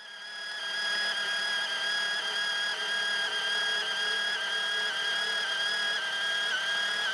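Makita cordless portable bandsaw starting up and cutting steel with an 8–10 teeth-per-inch blade. Its whine builds over the first second, then holds steady with slight dips in pitch as the blade bites.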